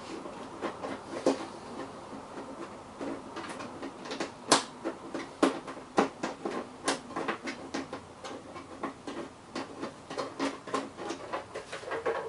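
Irregular clicks and knocks of hands fitting the safety microswitch onto the belt-cover lid of an Optimum D17 Pro benchtop drill press. One sharper knock comes about four and a half seconds in.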